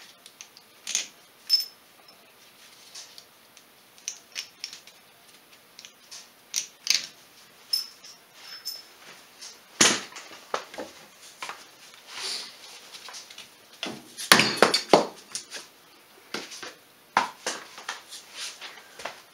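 Scattered metal clinks and knocks from hand tools and nuts on an ATV's rear wheel hub as it is taken apart, with a cluster of louder knocks about fourteen to fifteen seconds in.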